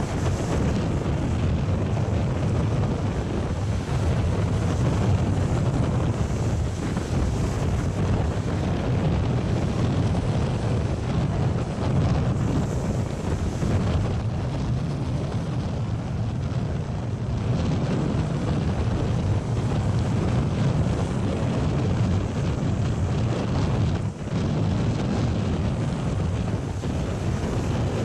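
Storm surf: rough sea surging and breaking over rocks along a jetty, with strong wind buffeting the microphone as a steady low rumble.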